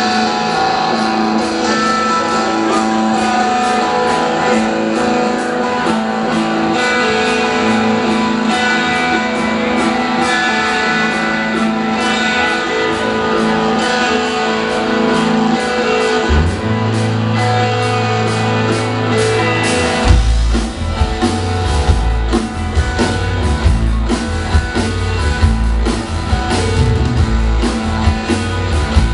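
Live rock band playing an instrumental intro: electric guitars alone at first, a bass guitar coming in a little past halfway, then drums and the full band kicking in about two-thirds of the way through with a steady beat.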